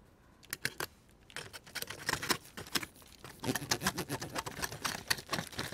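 Plastic knife and fork cutting into a piece of chicken on aluminium foil: a run of small clicks and crackles, sparse at first and thicker in the second half.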